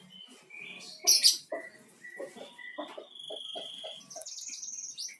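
Pet green leafbird (cucak ijo) calling: a run of short chirps and whistled notes, with a longer steady whistle about three seconds in.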